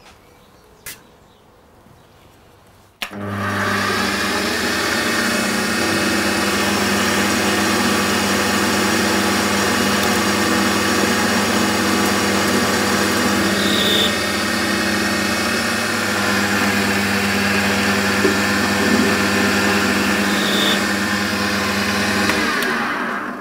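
Warco bench metal lathe starting with a click about three seconds in, running steadily with a motor-and-gear whine as it turns a small brass part, then switched off near the end and winding down.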